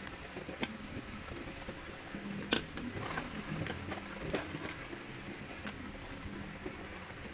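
Handling noise of drawing tools: a few light clicks and taps as a gel pen is set down and a pencil picked up on a tabletop, with one sharper click about two and a half seconds in.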